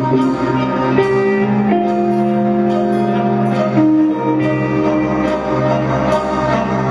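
Heavy metal band playing an instrumental passage live, with long held notes that step to new pitches every second or two over cymbal and drum strikes.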